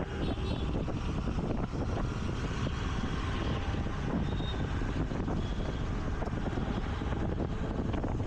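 Wind rushing over the microphone of a moving scooter, with the scooter's engine and the hum of city traffic beneath it. Faint short high tones sound briefly about four and five and a half seconds in.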